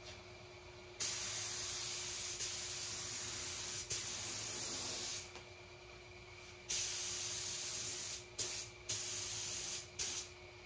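Gravity-feed paint spray gun spraying automotive base coat, a loud hiss of compressed air cutting on and off with the trigger. About a second in comes a long pull of about four seconds, then after a pause a few shorter bursts, the last ones quick.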